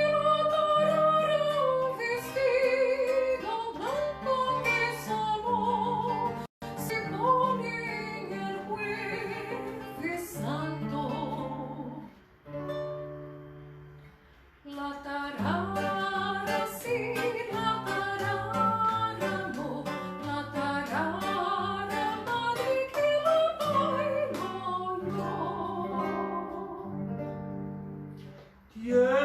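Singing with acoustic guitar accompaniment in a Spanish folk style, the voice held and wavering over plucked notes, with a quieter lull about 12 to 15 seconds in.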